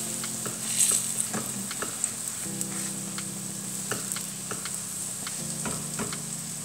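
Breadcrumb-coated chicken breast patties shallow-frying in a little oil on very low heat: a steady gentle sizzle with scattered small pops and crackles, over a low steady hum.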